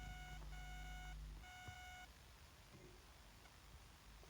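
Three short, evenly spaced electronic beeps, each a steady tone about half a second long, ending about two seconds in, with a faint low hum under the first half.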